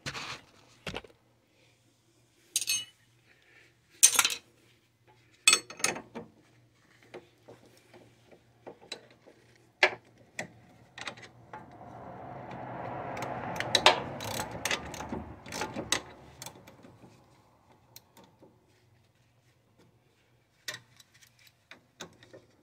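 Hand socket ratchet clicking and metal tools clinking as a suspension bolt is turned, with a combination wrench holding the bolt head. Sharp clicks and clanks come in scattered groups, with a few seconds of rising and falling noise in the middle.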